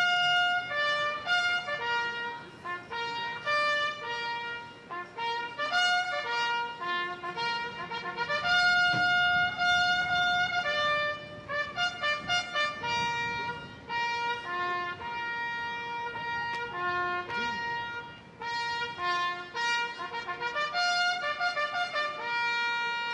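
Solo trumpet playing a bugle call for a flag lowering, a single line of short and long-held notes.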